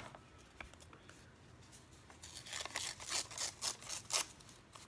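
Old book-page paper being torn by hand: a run of short, papery rips starting about two seconds in and stopping after about two seconds.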